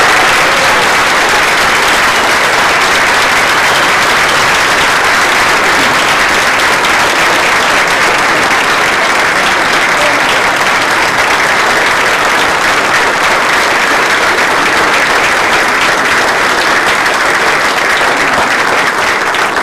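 A large audience applauding as a standing welcome for a speaker. The clapping is dense and keeps up at an even level throughout.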